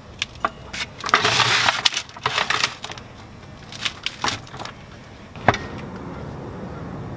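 Scattered metal clinks and taps from hand work on a BMW E46 clutch and pressure plate, with a short rattling scrape about a second in.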